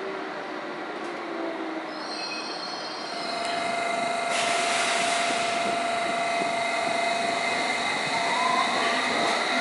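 London Underground train running, heard from inside the carriage: a steady rumble with a steady whine, louder after about four seconds. Near the end a whine climbs in pitch, as the traction motors speed up.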